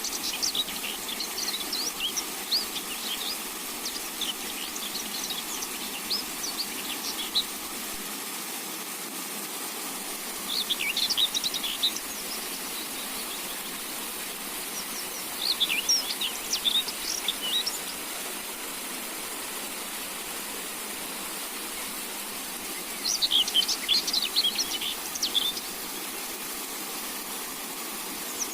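Songbird singing in spells of rapid, high chirping notes, each a second or a few seconds long, separated by pauses of several seconds, over a steady hiss.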